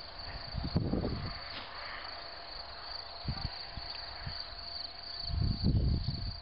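Crickets chirring steadily in the grass, one high even trill, with low rumbles and a few soft knocks on the microphone now and then.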